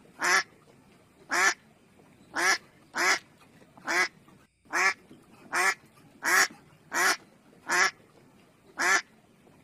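Mallard duck quacking: about a dozen short single quacks in a loose, steady series, with a brief pause about halfway through.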